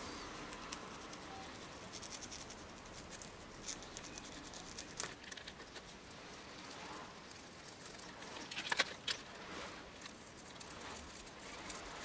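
Faint scratching and light clicking as a small brush scrubs a stainless steel Seiko watch bracelet and clasp, with a few louder clicks about three-quarters of the way through.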